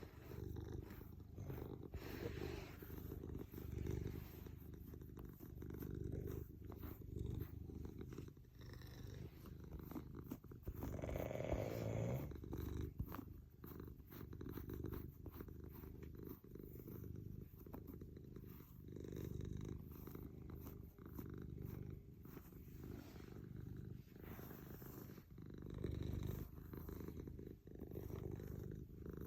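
Domestic cat purring in a continuous low, pulsing rumble while being brushed. About eleven seconds in a brief louder, breathier sound rises over it.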